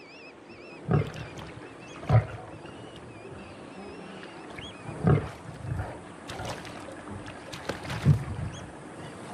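Young male lion snarling in four short, loud bursts, threat snarls aimed at crocodiles closing in on his kill.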